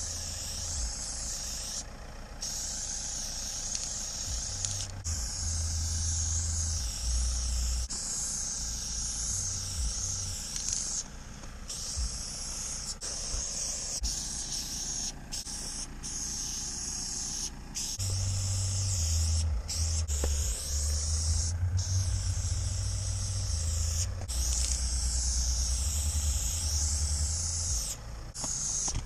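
Aerosol spray paint can hissing in long sprays, with a dozen or so brief breaks as the nozzle is let go and pressed again. A low rumble comes and goes underneath.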